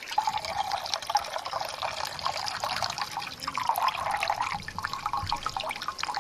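Water pouring in a steady splashing trickle from a cut plastic transpiration bag into a mug as the mug fills; the water was collected from a bush branch by transpiration.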